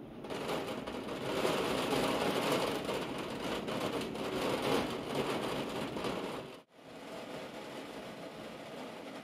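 Steady rain falling, an even hiss with no distinct drops or rhythm. About two-thirds of the way through it cuts out abruptly for an instant and comes back quieter.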